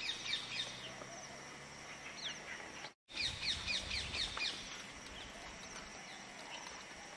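Birds calling outdoors: a run of short, quickly falling high notes, about five a second, at the start and again a little before the middle, over a faint steady outdoor hiss. The sound cuts out for a moment about three seconds in.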